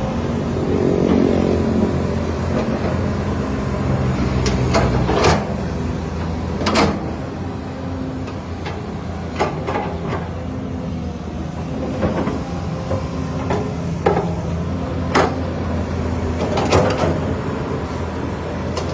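Diesel engine of a Cat 320D2 hydraulic excavator running steadily under work, with sharp metallic clanks every second or two, about ten in all.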